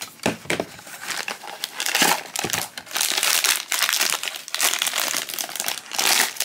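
Foil blind-box bag crinkling and rustling as it is pulled from its cardboard box and torn open by hand, the crackle growing thicker about halfway through.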